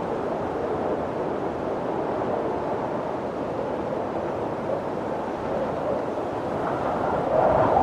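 Wind blowing in a steady rush, swelling a little louder near the end.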